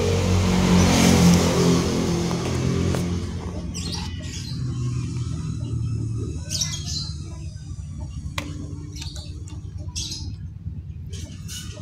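A motor vehicle's engine running steadily and fading away over the first few seconds, then birds chirping in short scattered calls.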